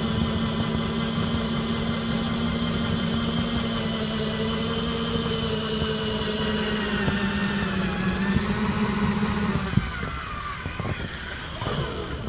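Cordless drill motor, its battery removed and run straight from solar panels, spinning a propeller on a threaded-rod shaft: a steady whine that sags in pitch from about seven seconds in and cuts out a little before ten seconds, as the panels pass into the shade of a bridge.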